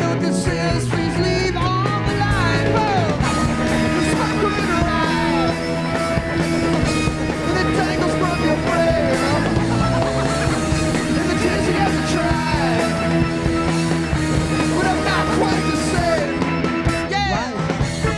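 Live rock band playing a song, with drums, bass and electric guitars.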